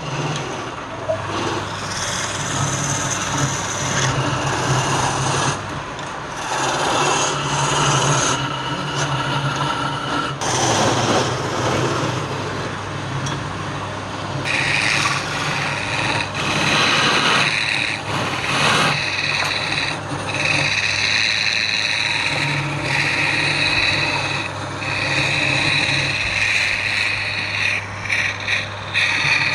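Wood lathe running with a low steady hum while a turning tool scrapes against the spinning wood, the cutting noise coming and going. From about halfway the scraping turns higher and brighter, broken by short pauses.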